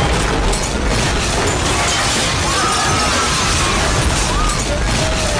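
Continuous rumbling and crashing of debris as a building collapses in an earthquake, with a few faint cries over it.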